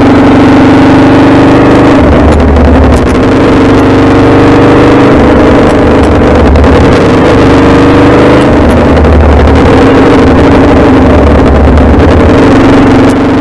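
Aprilia Tuono V4's V4 engine running on the road, loud, its pitch rising and falling several times with the throttle, over a constant rush of wind and road noise.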